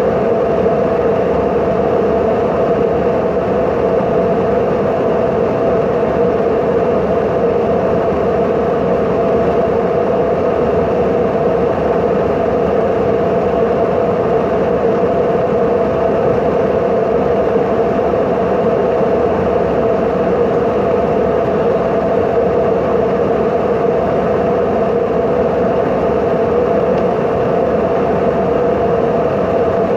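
Airliner cabin noise: the steady drone of the jet engines and rushing air heard from inside the cabin, with a constant hum, unchanging throughout.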